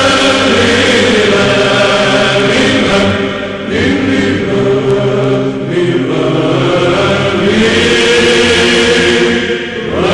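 Byzantine chant: voices singing a hymn in long held, ornamented notes over a steady low held note, with short breaks between phrases about four seconds in and near the end.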